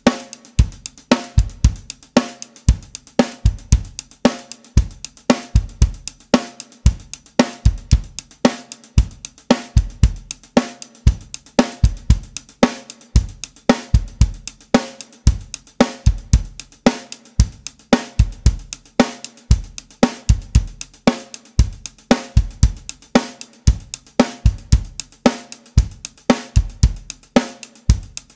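Drum kit playing a steady rock groove: sixteenth-note hi-hat over bass drum and a snare backbeat, repeating evenly bar after bar.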